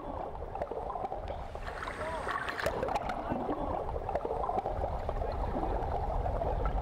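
Steady low rumble of wind and water on the soundtrack of boat-at-sea footage, with faint, indistinct voices underneath.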